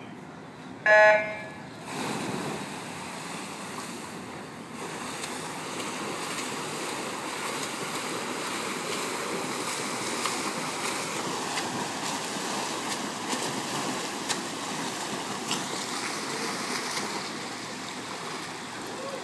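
An electronic race-start tone beeps once, briefly and loudly, about a second in. Then comes a steady wash of splashing from swimmers racing in the pool.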